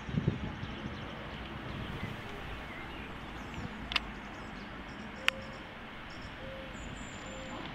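Outdoor park ambience: a steady hiss with faint, scattered bird chirps and a thin high whistle near the end. Two sharp clicks come around the middle.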